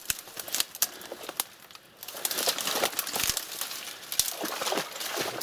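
Dry twigs and branches of a bare bush thicket crackling, snapping and rustling as they are pushed through and bent aside. The snaps are sharp and irregular, ease off briefly just before two seconds in, then come thicker.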